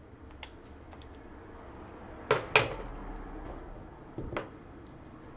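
Sharp clicks and taps of small phone parts and tools being handled on a repair bench: a loud pair a little past two seconds in, a softer pair about four seconds in, and a few faint ticks between.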